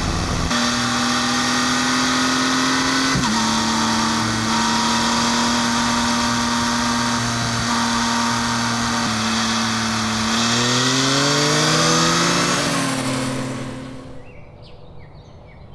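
Yamaha XSR900's inline three-cylinder engine running at steady revs, then rising in pitch as it accelerates from about ten seconds in, before fading out near the end.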